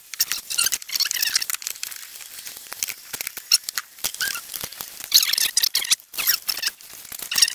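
Rubber hoses and plastic engine-bay parts being handled and pushed into place by gloved hands: rapid, irregular squeaks, creaks and crackles that start and stop.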